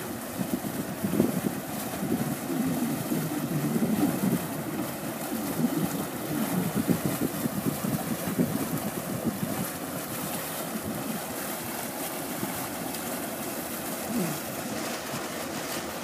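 A Sealine SC35 motor cruiser's engines running at low speed, its propellers churning the water at the stern while it manoeuvres slowly into a berth. The churning is louder and more uneven in the first half, then steadier.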